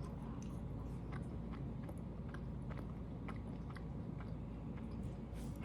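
A person chewing a bite of air-fried Nutri-Grain bar, with faint irregular clicks of chewing.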